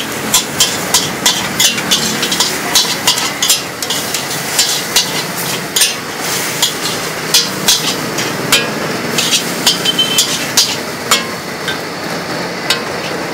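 Metal spatula striking and scraping a metal wok in quick strokes, about three clanks a second, as noodles and greens are stir-fried over a steady sizzle.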